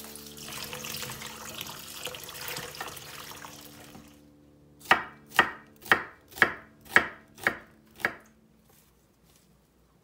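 Tap water running and splashing into a steel bowl in a sink while greens are rinsed, then a knife slicing an onion on a wooden cutting board: seven sharp chops about half a second apart.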